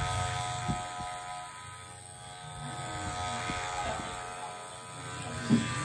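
Cordless electric hair clipper buzzing steadily as it cuts a fade around the ear and nape, dipping in level briefly about two seconds in.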